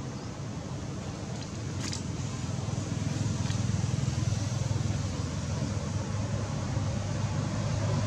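Steady low rumble of road traffic, growing slightly louder, with a faint click about two seconds in.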